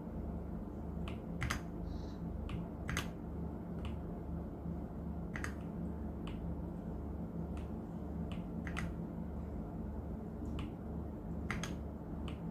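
Ajazz AK820 mechanical keyboard keys being pressed one at a time: sharp single keystrokes, irregularly spaced at roughly one a second, over a steady low hum.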